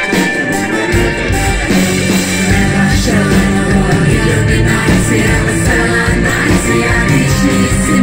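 Live band with trumpet, trombone and tuba playing, with singing. The bass is thin at first and comes back in full about a second in.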